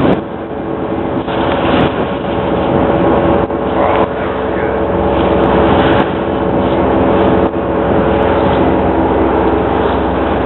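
A ferry's engine drones steadily, a constant pitched hum over a steady rushing noise.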